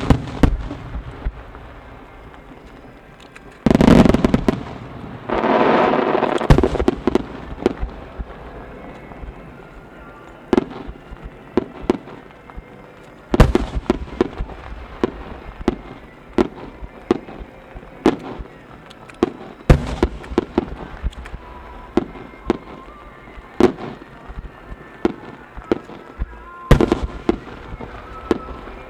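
Starmine fireworks display: shells bursting in rapid succession with many sharp bangs, and a dense, louder barrage of bursts from about four to six and a half seconds in.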